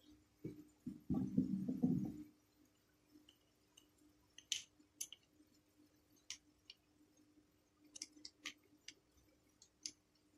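Small metal parts of a fishing reel being handled and worked loose during disassembly. A brief low clatter comes in the first two seconds, then a string of scattered sharp, light clicks.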